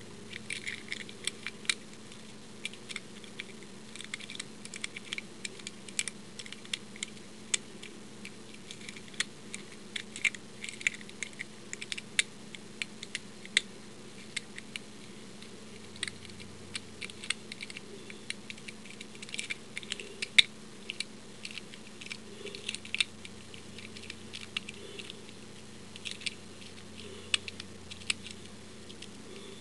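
Lock pick working the pins of an old Yale pin-tumbler lock: a steady stream of irregular small metallic clicks and scrapes as the pins lift and drop, with one or more pins catching and not setting.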